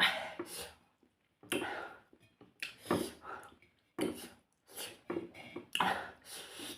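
Close-up eating sounds: irregular bouts of chewing, smacking and slurping about once a second, with short silences between.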